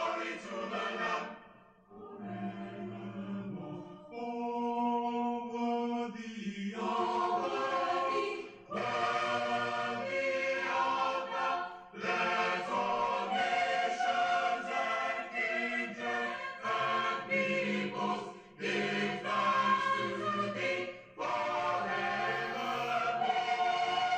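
Choir singing, in phrases of held notes with short breaks between them.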